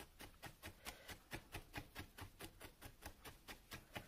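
A felting needle stabbing over and over into a rolled wad of wool on a burlap felting pad, making a fast, even run of faint ticks, about six or seven a second.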